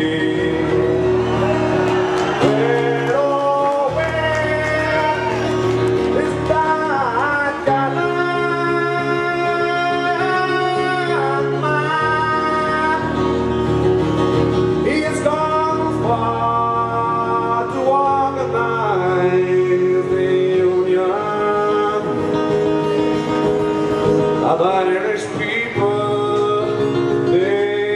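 A man sings a folk ballad with long held notes over a strummed acoustic guitar.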